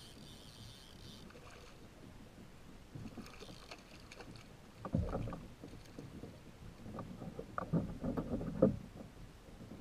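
Irregular knocks and thuds of gear being handled in a plastic fishing kayak, loudest about five seconds in and again near the end.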